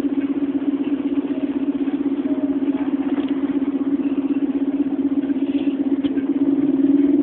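Volvo Olympian double-decker bus's diesel engine idling steadily with an even pulse while the bus stands still, heard from inside the bus.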